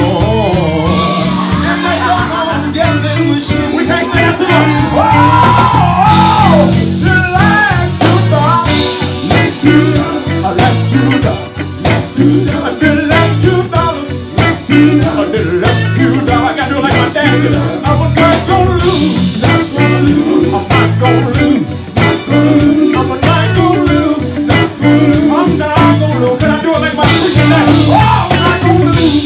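A live band playing: electric guitars and a drum kit keeping a steady groove, with a singer's voice over the top.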